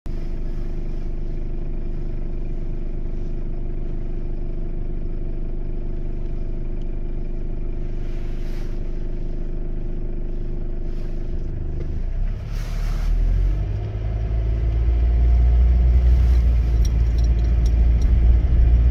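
Car heard from inside the cabin: a steady engine hum for the first twelve seconds or so, then a deeper rumble builds and grows louder as the car moves off.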